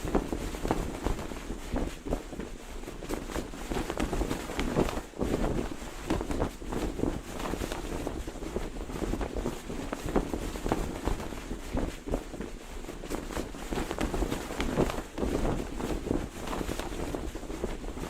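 Cloth flag flapping and snapping in the wind: irregular rapid flutters and cracks over a steady rush of wind.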